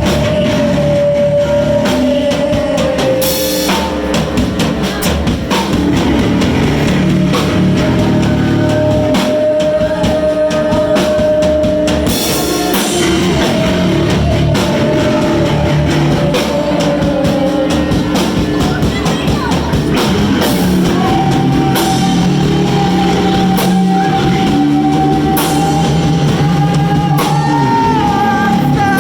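A rock band playing live, with drum kit and guitar. Long held notes run over the playing, loud and steady throughout.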